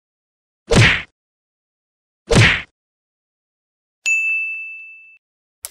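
Two short whoosh sound effects about a second and a half apart, then a bright ding chime that rings and fades over about a second.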